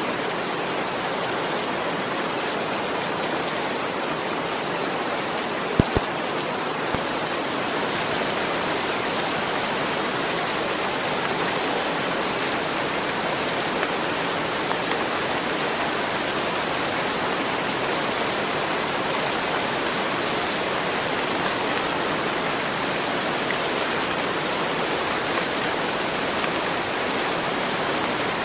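Heavy rain falling steadily, an even rush of noise, with a couple of sharp knocks about six seconds in.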